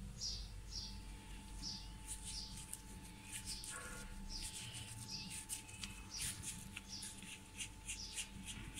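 A bird chirping over and over, short falling chirps every second or so, over faint rustling of hands rolling dough balls in dry flour and a low steady hum.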